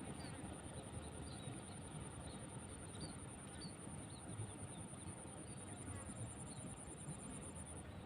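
Outdoor ambience with insects trilling: one steady high-pitched trill throughout, joined by a second, pulsing trill for about two seconds past the middle, over faint short chirps and a low rumble.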